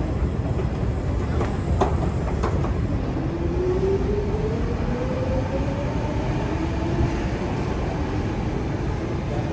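Underground metro station rumble, with a rising electric whine from about three to seven seconds in, a metro train's traction motors speeding up as it pulls away. A couple of light clicks come about two seconds in.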